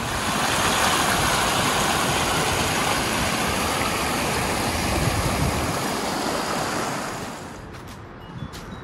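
Rushing water of a mountain stream, a steady rush that fades away near the end.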